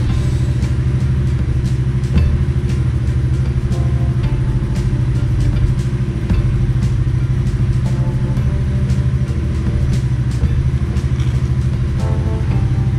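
Honda Shadow 750 Aero's V-twin engine idling steadily as it warms up, letting the oil circulate.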